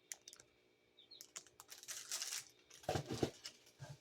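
Hands handling items from an unboxing: light clicks and taps, a rustle of crinkly plastic packaging, then a few dull thumps about three seconds in as things are set down.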